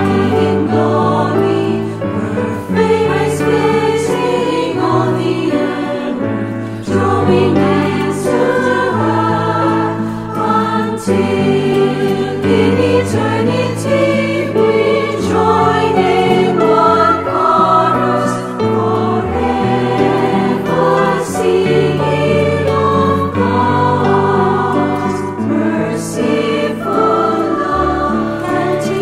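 A choir of women's voices singing a hymn in English over guitar accompaniment with held low notes.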